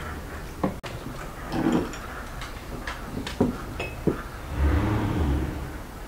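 Sounds of a family meal: scattered light knocks and clinks of plates and tea glasses on a wooden table, with a low muffled rumble about five seconds in.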